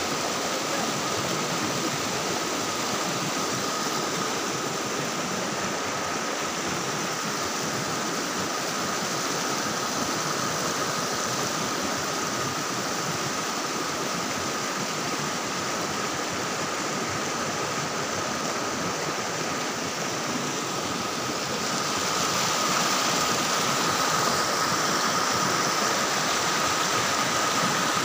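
Steady rushing of a small mountain stream, an even hiss with a thin steady high whine running through it, growing slightly louder near the end.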